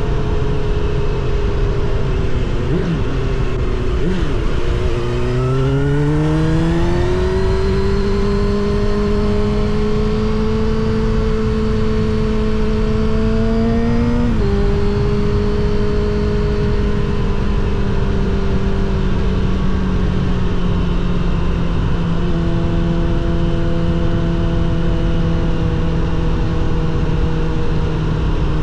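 Motorcycle engine and exhaust under way, with wind and road noise. The revs climb smoothly about five seconds in, drop abruptly at a gear change about halfway through, then hold nearly steady while cruising.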